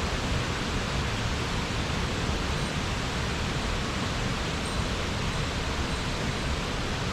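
Steady rushing of a mountain stream's flowing water, an even unbroken wash of noise.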